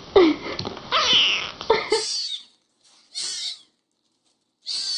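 Kittens meowing: a couple of calls with small knocks in the first two seconds, then three short, high meows about a second apart with silence between them.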